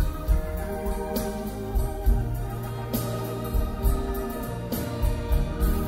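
Live rock band playing an instrumental passage, with sustained electric organ chords over bass and drums hitting about once a second, in an audience recording of the concert.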